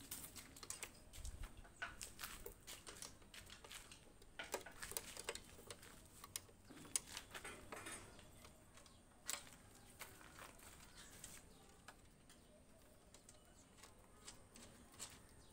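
Faint, irregular light clicks and ticks of metal on metal as a nut is turned off a bolt of metal column shuttering.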